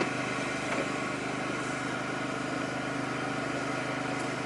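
Mazda MX-5 Miata (ND) engine idling steadily.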